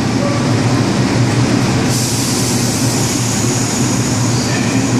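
R142 subway train standing at the station platform, its equipment giving a steady electric hum. About two seconds in, a high hiss starts suddenly and carries on.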